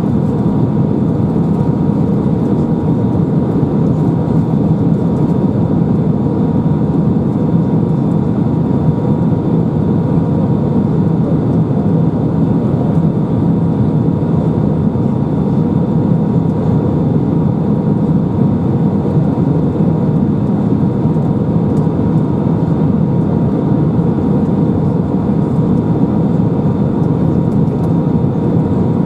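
Steady jet engine and airflow noise inside the passenger cabin of an Airbus A319, a deep even rush with a faint steady whine over it.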